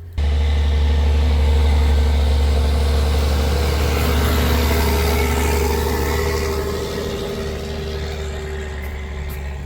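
A vehicle engine running under load as it climbs a hill: a loud, steady low drone that starts suddenly and slowly eases off over the last few seconds.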